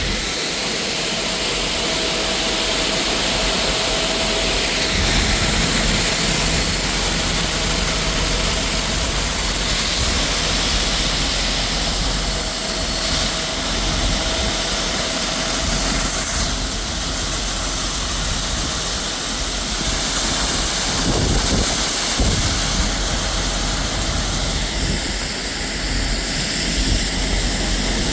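Combine harvester running steadily while harvesting soybeans: a continuous engine and machinery noise with a strong hiss.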